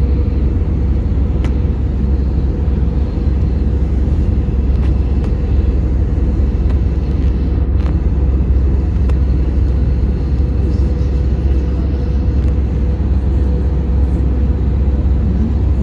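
Airliner cabin noise in flight: the steady drone of the engines and rushing air, deep and even, with a thin steady hum above it.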